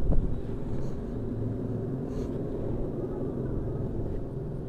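A vehicle engine running steadily with a low rumble, with a single knock right at the start.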